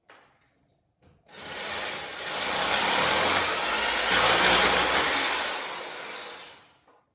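Electric drill boring into the ceiling, starting about a second in. Its motor whine climbs in pitch as it runs, then drops about five seconds in as the drill winds down.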